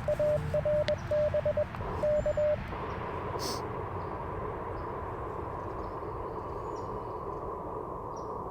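Icom IC-705 transceiver's CW sidetone keying a Morse call as dots and dashes on one steady pitch, stopping about two and a half seconds in. Then the receiver's steady hiss of 40-metre band noise through a very wide filter as it listens for a reply.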